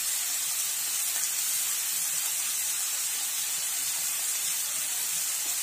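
Turmeric-coated lote fish (Bombay duck) pieces sizzling in oil in a kadai, being lightly fried: a steady, even, high hiss.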